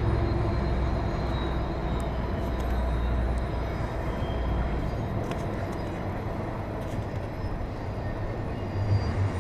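Intermodal freight train's container cars rolling around a curve: a steady rumble of wheels on rail, with a low drone that fades out about halfway through.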